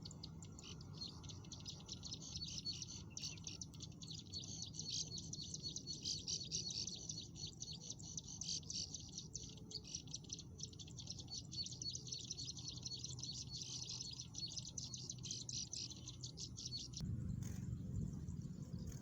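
Prinia (ciblek sawah) calls: a rapid, unbroken chattering of high notes, many a second, that cuts off suddenly near the end, after which a low rumble rises.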